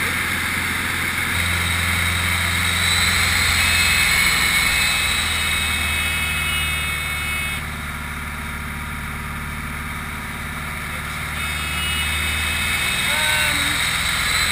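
Single-engine Grob light aircraft's piston engine and propeller droning in the cockpit through an aerobatic manoeuvre. The engine note shifts during the manoeuvre and drops quieter for a few seconds in the middle before coming back up.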